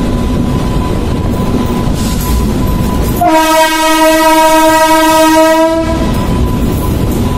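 Train rolling over a steel truss bridge, heard from aboard as a steady rumble. About three seconds in, a train horn sounds one steady note for nearly three seconds, then stops.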